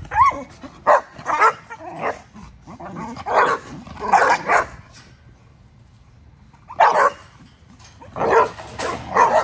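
Puppies barking and yipping in rough play: a string of short barks, with a pause of about two seconds in the middle. A short whine comes right at the start.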